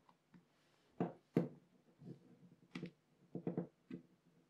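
Sharp small clicks and knocks from a Ricoh GR camera body's plates being handled and pried loose: two about a second in, then a quick run of them near the end.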